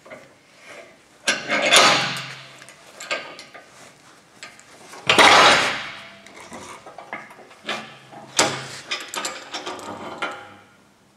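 Cast-iron bench vise being worked by hand: the jaw screw turning and the steel handle bar clanking, with a metal bearing housing scraping and knocking in the jaws. Several bouts of scraping and clatter, the loudest about five seconds in, and a run of sharp knocks near the end.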